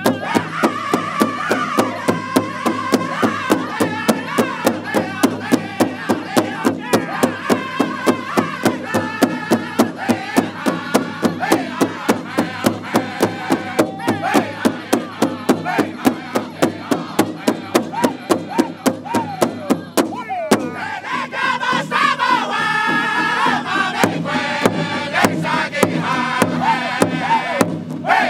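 A Northern-style powwow drum group: several men striking one large shared hand drum in unison with padded drumsticks while singing together in high, strained voices. The drumbeat is steady at about three beats a second; about twenty seconds in it briefly breaks and a high lead voice starts the song again, the drumming picking back up under it.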